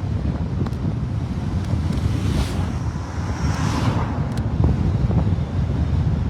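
Wind buffeting the microphone, a steady low rumble, with a vehicle passing on the road between about two and four seconds in, its sound rising and then falling away.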